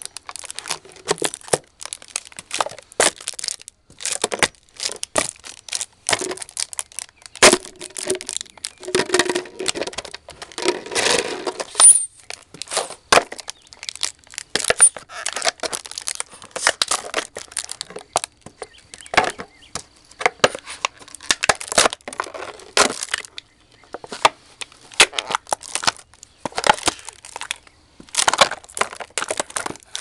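Empty plastic soap bottles crackling and crunching as they are stomped and crushed under Bates buckle chukka police boots, in a quick run of bursts with a few sharper cracks.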